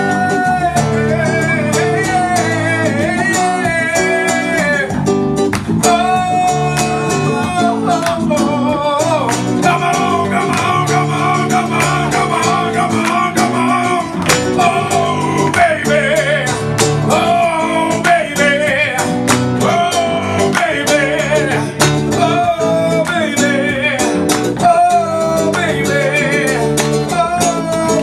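Live zouk song: a man singing with guitar accompaniment.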